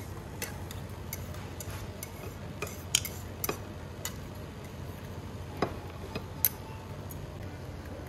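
Tableware clinking during a shabu-shabu meal: scattered, irregular light clicks and taps of utensils on bowls and plates, with a few sharper knocks about three seconds in and again near the end.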